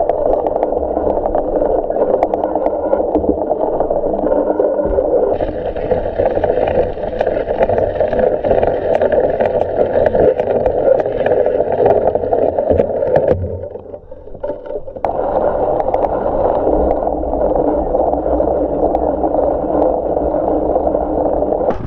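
Gravel bike's tyres rolling through wet mud on a forest track: a steady rolling noise that eases off briefly about two-thirds of the way through.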